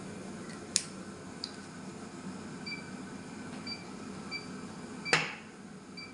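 Short high electronic beeps from the Nipro Surdial 55 hemodialysis machine, about one a second from roughly the middle on, over the machine's steady hum. A sharp click comes just under a second in and a louder knock about five seconds in.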